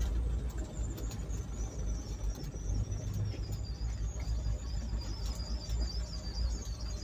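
Ford Cortina Mk3 driving slowly, heard from inside the cabin with the window partly open: a steady low engine and road rumble with a few faint light rattles. The owner suspects the rattle is the prop shaft's U-joint mount. A thin high warbling chirp runs through it.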